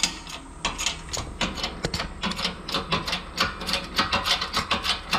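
Shop press pushing a solid spherical bearing into the bore of a suspension spindle, which is a snug, roughly 2-thou press fit. It gives a rapid, uneven run of sharp mechanical clicks, about four or five a second.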